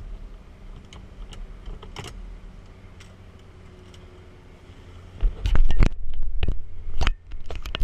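Handling noise on the camera: from about five seconds in, a hand grips and fumbles with it, giving a string of loud sharp clicks and knocks. Before that a steady low hum with a few faint ticks.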